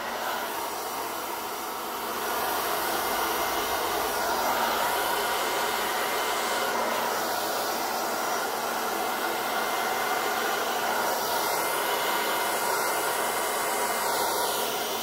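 Handheld hair dryer running steadily, blowing wet acrylic paint across the board. It gets a little louder about two seconds in.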